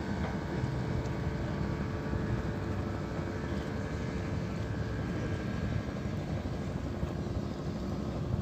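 A boat's motor running steadily at an even speed, a low drone with a faint steady hum on top.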